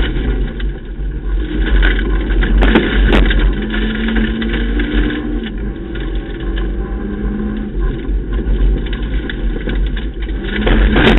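Ford Ka rally car at speed on a gravel stage, heard from inside the cabin: the engine runs hard, its note shifting, over a heavy rumble of tyres and bodywork on the loose surface. There are a few sharp knocks about three seconds in and again near the end.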